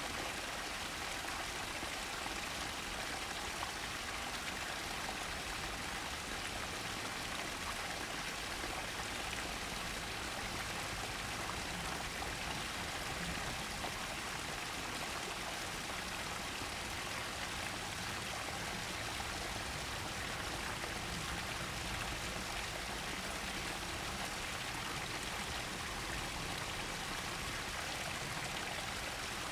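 Running water flowing steadily, an even, unchanging wash of water sound.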